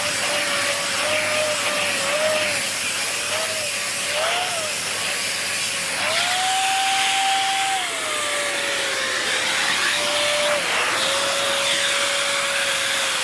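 Dyson Big Ball Animal cylinder vacuum cleaner running with its turbo tool fitted directly on the hose: a steady rush of suction with a motor whine that wavers in pitch and rises for about two seconds around the middle before settling back.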